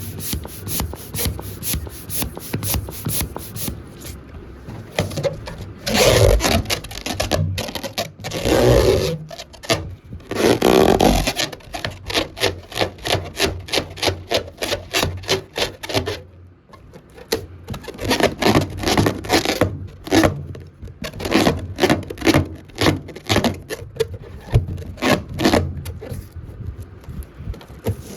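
A rubber balloon squeaking as it is rubbed in quick repeated strokes, several a second. About 6, 9 and 11 seconds in come longer, louder squeals.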